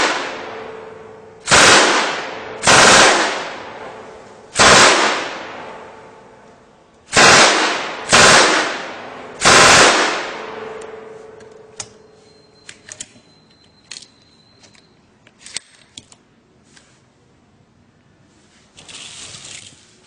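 Scale-model .50-cal Browning M2 machine gun firing .22 rounds in six short bursts of automatic fire, each about half a second long, over the first ten seconds. Each burst is followed by a long echo that dies away. After that there are only a few light clicks and a brief rustle near the end.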